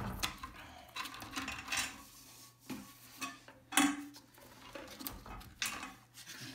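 Old tank-to-bowl bolts and their nuts and washers being worked loose and knocking against the porcelain of an empty toilet tank: a run of scattered clinks and knocks, the sharpest about four seconds in.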